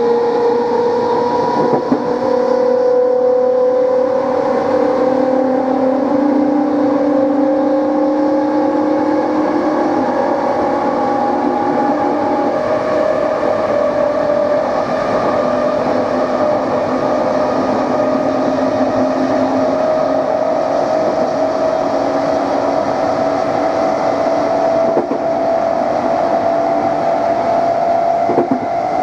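NS Plan V (Mat'64) electric multiple unit's traction motors whining, several tones together rising slowly in pitch as the train gathers speed, over the running rumble of the train.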